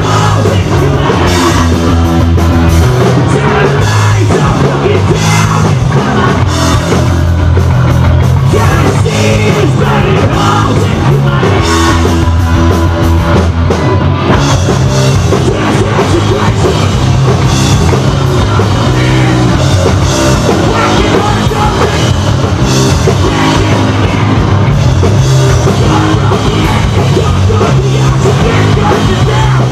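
Hardcore punk band playing loud live, with electric guitar, bass and drum kit and a vocalist screaming.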